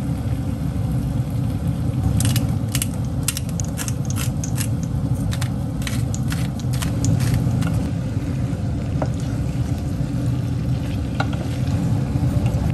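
Stirring in a pan: a utensil clicking and scraping against it, mostly in the first half, over a steady low rumble.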